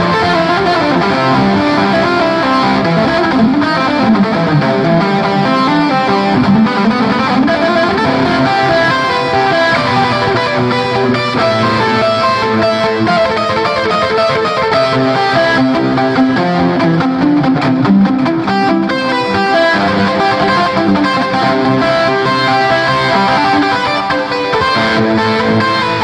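Electronic keyboard played with an electric guitar voice that imitates a Gibson Les Paul, a continuous guitar-like melody and chords with a few bent notes a few seconds in.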